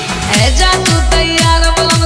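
Krishna bhajan set to an electronic dance beat: a deep kick drum that drops in pitch on each hit, about two beats a second, under a held melodic line and bright percussion.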